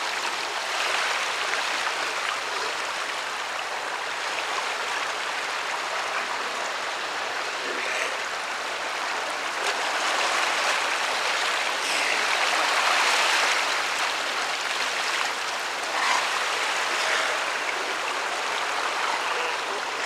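Surf rushing and washing over rocky shoals, steady and swelling a little in the middle, with South American sea lions calling faintly from the colony now and then.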